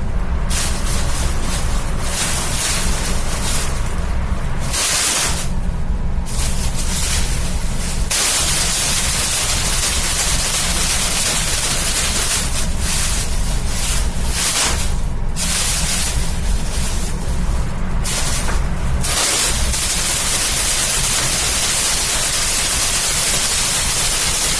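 Box fan running: a steady motor hum under a loud rushing, rustling hiss. The hiss drops out briefly several times, then holds steady over the last few seconds.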